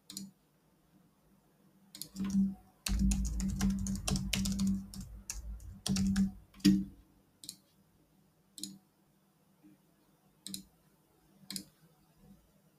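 Computer keyboard typing in a quick burst of about four seconds, followed by several single mouse clicks about a second apart.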